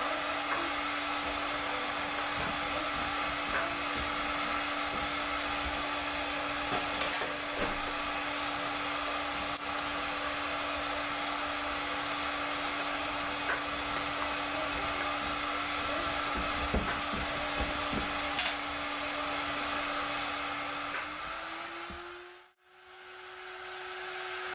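Steady machine whir with a constant low hum and scattered faint crackles. Near the end the hum rises slightly in pitch, the sound drops out abruptly, then swells back.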